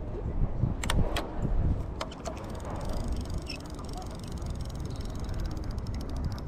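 A conventional fishing reel ticking rapidly and evenly as its handle is cranked, starting about halfway through, after a few sharp knocks about a second in. Wind rumbles on the microphone throughout.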